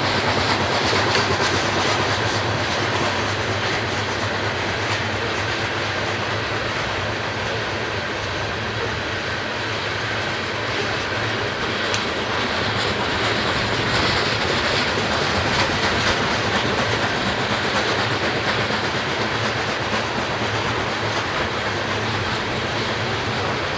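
Loaded coal hopper cars of a BNSF unit train rolling past, with a steady noise of steel wheels on the rails.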